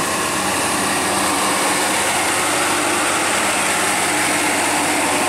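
Diesel engine of a loaded Hino cargo truck pulling up a hill as it passes close by: a steady drone under load.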